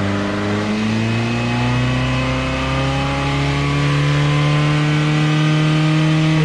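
Car engine accelerating, its pitch climbing slowly and steadily, then cut off abruptly at the end.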